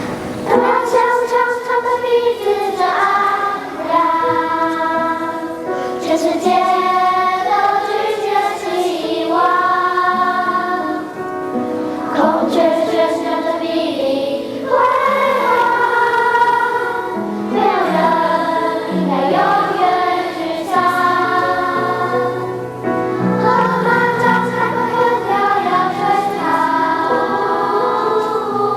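Children's choir singing a slow song in phrases of long held notes.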